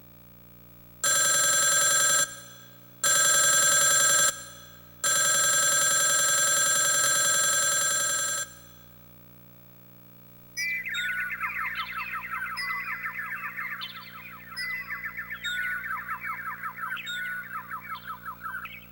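Built-in sound effects from a TJ Media WOW-7300-2 karaoke machine. First comes a loud electronic ringing like a telephone bell, in three bursts: two short ones and a longer third. After a short pause comes a fast warbling, chirping trill that lasts about eight seconds.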